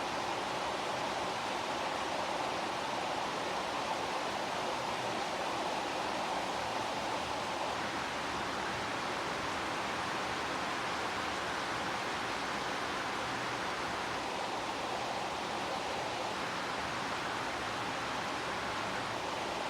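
Heavy rain falling steadily, an even hiss with no separate drops or thunder standing out.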